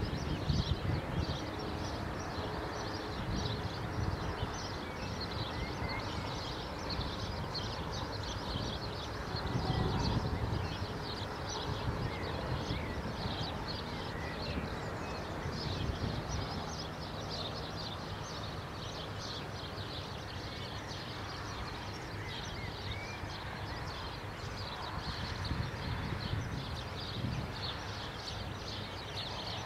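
Outdoor ambience of many small birds chirping thin and high, with a low rumble underneath that swells a little a few times.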